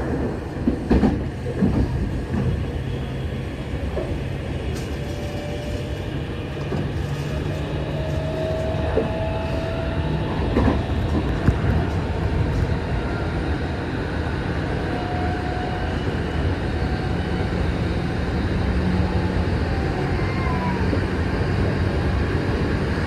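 Running noise heard from inside a moving commuter train: a steady rumble of wheels on rail with a few knocks near the start, brief thin wheel squeals partway through, and a low electric-motor hum that steps higher near the end.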